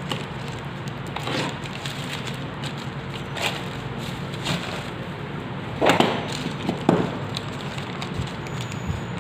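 Packaging being handled and opened: scattered crinkles, crackles and clicks over a steady low background hum, with the loudest crackles about six and seven seconds in.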